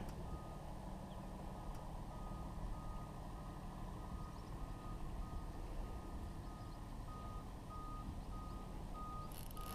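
A faint, steady high-pitched tone, broken by brief irregular dropouts, over a low outdoor rumble.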